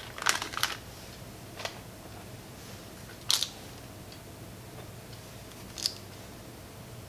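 Short soft taps and crinkles of parchment paper as raw chocolate dough discs are set down on a parchment-lined baking tray. There is a quick cluster of taps near the start, then single ones about a second and a half, three and six seconds in.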